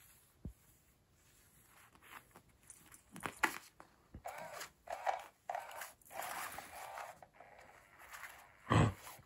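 Rustling and scraping of the nylon cover of a SmartyKat motorized cat toy as its wand moves under and against the fabric, in short repeated bursts. A louder thump comes shortly before the end.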